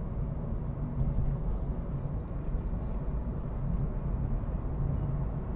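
Steady low background rumble, with no speech over it.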